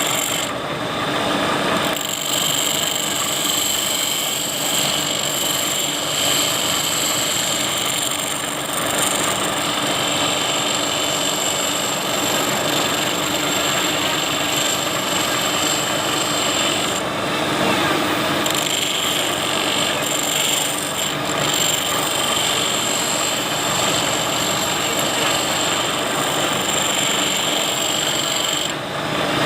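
Power tool running steadily with a constant high whine, working a cut-down planer knife blade into a profile cutter. The whine drops out briefly about two-thirds of the way through and again near the end.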